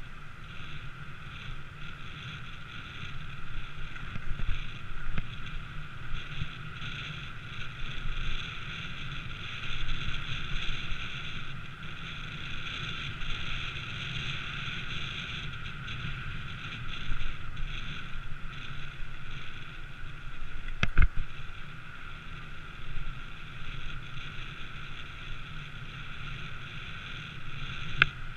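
Steady wind and riding noise on a camera moving along a street, with a sharp click about 21 seconds in and another near the end.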